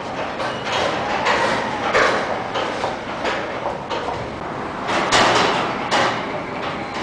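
Machinery of an automated car-park lift moving a car out of its bay: steady mechanical running with a series of short rattling, hissing bursts, the loudest about five seconds in.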